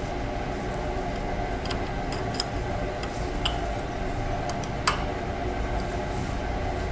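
A few light clicks and small metallic taps from steel chuck-jaw pieces being handled and marked, the loudest about five seconds in, with a short ring, over a steady low background hum.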